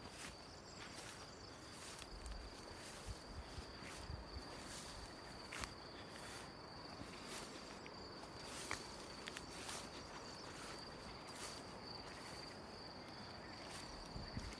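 Insects trilling in one steady high-pitched tone, with scattered sharp clicks, several a second or so apart. Wind on the microphone gives a few low rumbles about two to four seconds in and again near the end.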